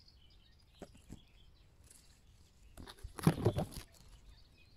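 Faint bird chirping in a garden. About three seconds in comes a brief burst of rustling and knocking noises, the loudest sound here.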